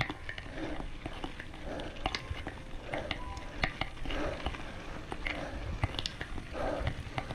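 Mountain bike riding up a rocky dirt trail: the tyres crunch over grit and rock, the bike clicks and rattles, and a low rumble runs under it all.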